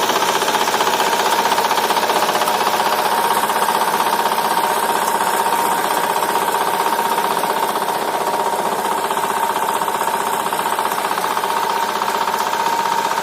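Walk-behind tractor (motoblock) engine running steadily under load with a fast, even pulse, driving a rotary tiller and hillers between potato rows.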